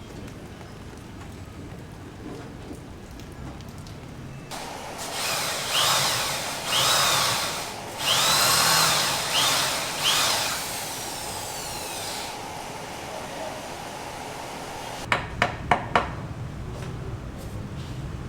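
A power tool on a building site runs in several bursts for about eight seconds, its whine rising and falling in pitch each time. It is followed a few seconds later by four sharp knocks in quick succession.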